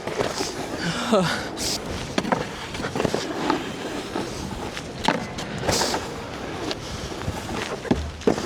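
Snowboard scraping and sliding over hard, icy snow, with scattered knocks and clatter.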